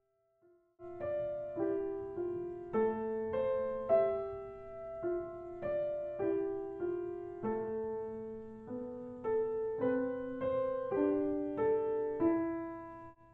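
Background piano music: struck notes and chords in a steady rhythm, about two a second, starting about a second in.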